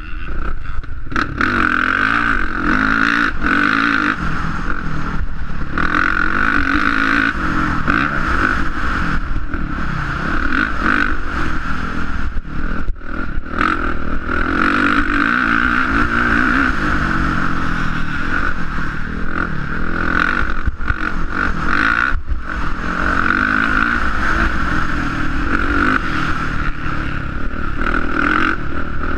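450cc motocross bike engine, heard onboard while riding, revving up and easing off over and over, with several brief dips in the engine note.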